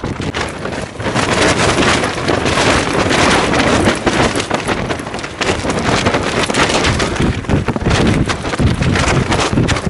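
Gusty wind blowing hard across the microphone: a loud rushing noise that swells about a second in, then surges and dips with the gusts.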